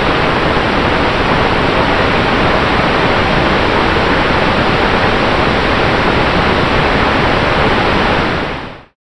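Loud, steady rushing airflow over an onboard camera's microphone on a flying RC model aeroplane, fading out shortly before the end.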